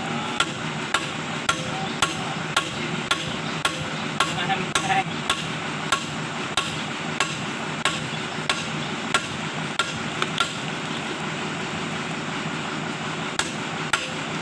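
Hammer blows struck in a steady rhythm, about one and a half a second, over steady background noise. The strikes pause near the end, then start again.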